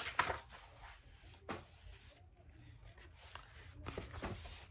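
Pages of a large paperback book being turned and rustled by hand, with a few short paper flicks, the sharpest at the start and about a second and a half in.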